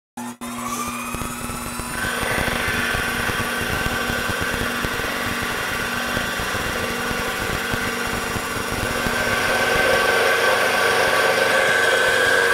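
Sherline mill spindle driving a four-flute serrated roughing (hog) end mill through the edge of 1/2-inch 6061 aluminium plate, taking a 40-thousandths side cut. A steady machining whine with a high ringing tone, growing louder about two seconds in.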